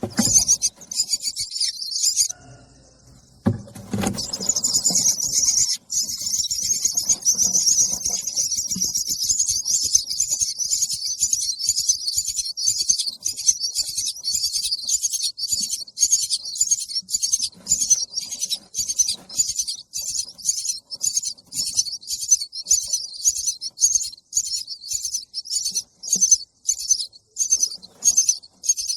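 Baby birds begging for food with shrill, high-pitched chirps. The chirps are almost continuous at first, then settle into a rapid series of about two calls a second. A brief knock sounds after a short pause about four seconds in.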